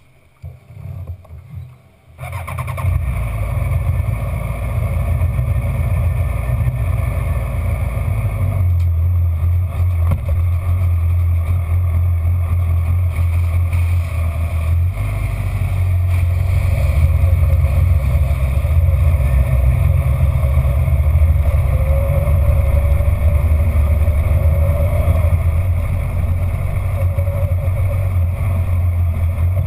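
Onboard sound of a sport motorcycle at speed on a racetrack: the engine runs hard and steady with wind noise on the camera, starting about two seconds in, its note shifting a few times along the way.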